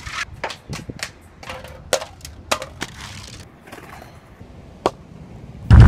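A plastic soda bottle tumbling down concrete steps, knocking and clattering about ten times at uneven intervals. A loud low boom starts just before the end.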